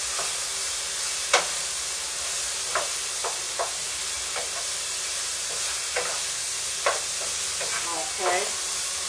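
Seasoned chicken pieces sizzling in a steel pot on the stove while a wooden spoon stirs them, the spoon knocking against the pot a few times.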